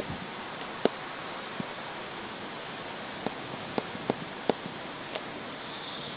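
Steady rain hiss in a thunderstorm, with about seven scattered sharp ticks of drops or hailstones striking a hard surface.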